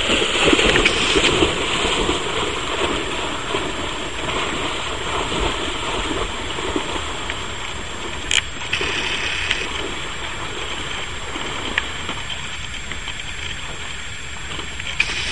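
Water sloshing and splashing as a large Fila Brasileiro dog wades and swims through a lake, a steady wash of noise that is loudest in the first few seconds and eases off after that.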